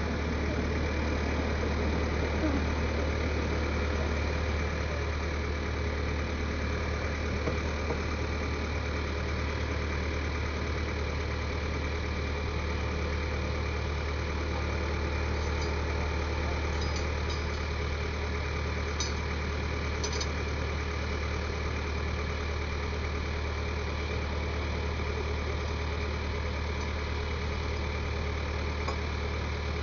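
Backhoe's diesel engine idling steadily, an even low drone. A few faint light clicks come in around the middle.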